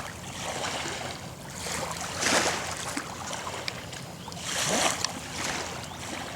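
River water lapping and splashing, with two louder surges of about a second each, around two and a half seconds apart.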